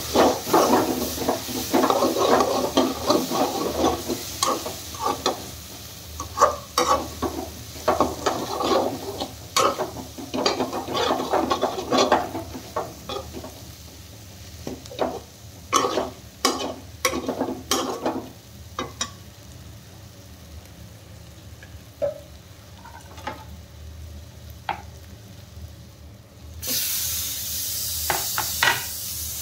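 A slotted metal spatula stirs and scrapes fried potatoes and onions around a hot pan, with sizzling. The scraping is dense for about the first twelve seconds, then thins to occasional scrapes and taps. Near the end a sudden loud sizzling hiss starts as chopped tomatoes hit the hot oil.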